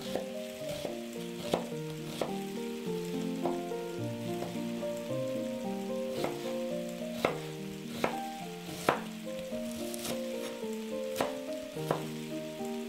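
Chef's knife cutting through an onion and knocking on a wooden cutting board: about a dozen sharp knocks at uneven intervals, the loudest about a second and a half in and twice more around seven and nine seconds in, over melodic background music.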